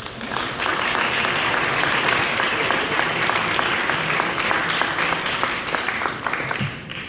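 An audience applauding. The clapping swells in the first second, holds steady, then dies away near the end.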